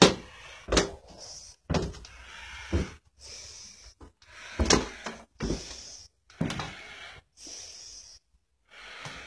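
A person breathing through a face mask, each breath a short hiss, with sharp knocks and clicks at irregular intervals of about a second.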